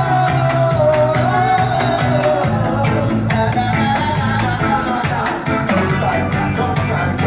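A live reggae band playing: drum kit, bass, electric guitars and keyboards, with a steady beat, heavy bass and a sung melody line over it.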